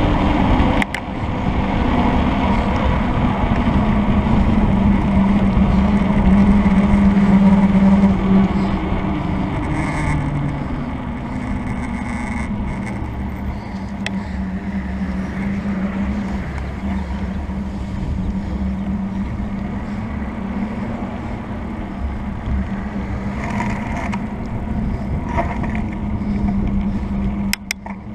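Wind rushing over the camera microphone and tyre noise from a mountain bike coasting fast downhill at around 40–50 km/h. A steady low hum under it is loudest in the first third and then eases off. A few short clicks come near the end.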